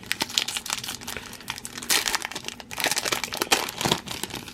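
A foil trading card pack wrapper being torn open and crinkled by hand, in a run of irregular crackles and rustles.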